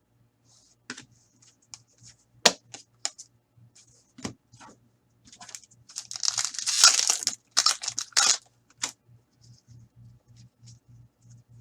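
A sports card pack wrapper is torn open with a crinkling rip lasting about two seconds, around the middle. Before and after it come scattered sharp clicks and taps of cards and wrappers being handled.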